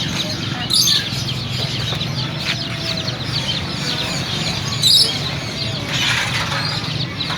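Many caged birds chirping and calling at once, a dense steady din, with clucking fowl among them and a couple of louder calls about a second in and near five seconds.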